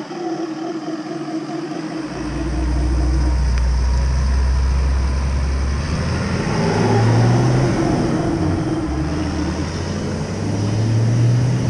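Mantled howler monkeys roaring: long, deep, drawn-out calls that overlap. A heavy low rumble sits under the calls for a few seconds, starting about two seconds in.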